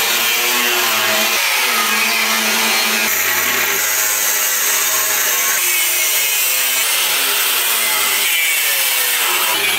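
Angle grinder cutting into a thick steel tank, the disc biting into the metal without a break.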